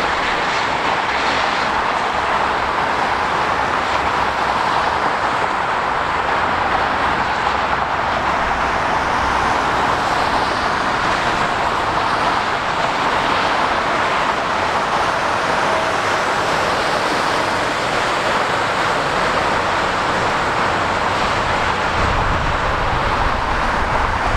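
Steady rush of dense motorway traffic, with tyres hissing on the wet road surface. A deeper low rumble comes in near the end.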